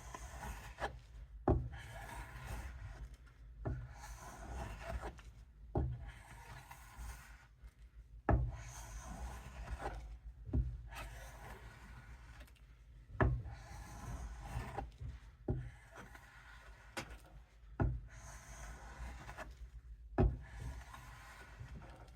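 Steel knife blade of a Camillus fixed-blade knife being stroked along a strop to polish the edge: a soft rubbing hiss on each pass, with a short knock roughly every two seconds as the stroke changes.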